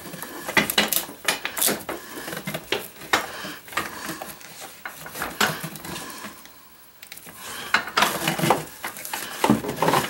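Corrugated plastic vacuum hose being handled and stretched straight, giving irregular clicks and rattles with a short lull about two-thirds of the way through.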